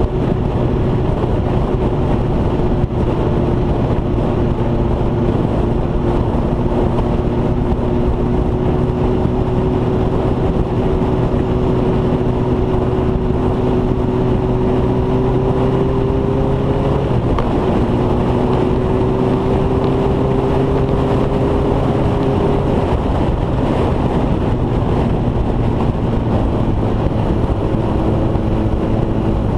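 Motorcycle engine running at road speed, its pitch slowly climbing, dipping briefly about seventeen seconds in, then climbing again, over steady wind and road noise.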